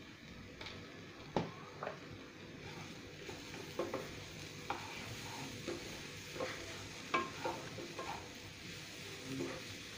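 A spatula stirring and scraping grated cauliflower and peas around a nonstick frying pan, in irregular scrapes and taps over a faint steady sizzle of the frying.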